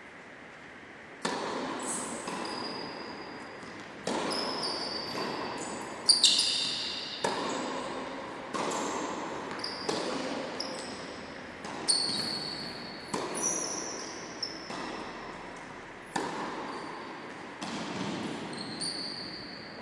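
Tennis rally: a tennis ball struck by rackets and bouncing on an indoor court, a sharp pock about every second, starting about a second in. Each hit rings and echoes through the large sports hall.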